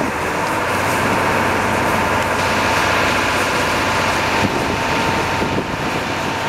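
Minibus engine running hard under load while its rear wheels spin and slip in packed snow, a steady drone mixed with the hiss of the tyres.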